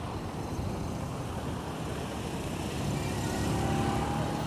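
Road traffic: motor vehicles running close by, with a vehicle growing a little louder about three seconds in.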